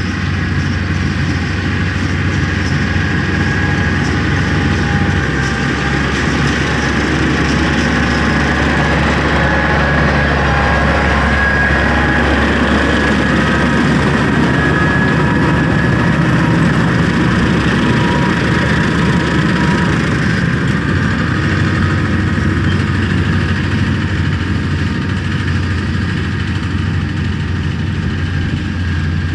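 Kubota M9000 tractor's diesel engine running steadily under load while pulling a haybine through hay. Its low drone shifts in tone about five seconds in and again about twenty-one seconds in.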